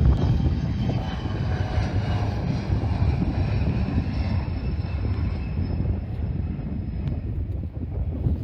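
Jet airliner passing close by: a steady low rumble with a faint high engine whine that slowly falls in pitch.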